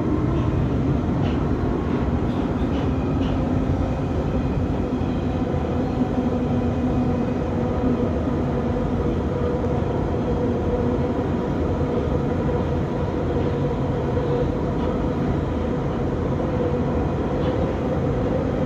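London Underground Central line train running fast through a tunnel: a loud, steady rumble and rattle of wheels on rail with a steady whine underneath.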